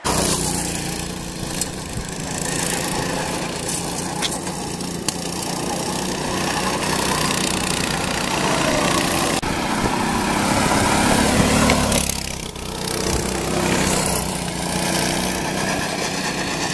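Small go-kart engines running as karts drive a paved course, swelling to their loudest about eleven seconds in, with a brief dip just after.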